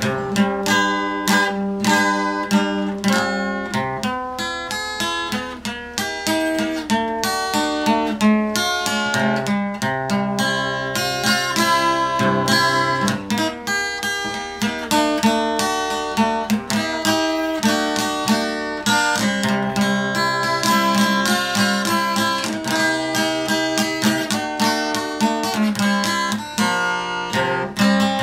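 Dreadnought acoustic guitar strummed in a steady rhythm, playing chords of an instrumental passage.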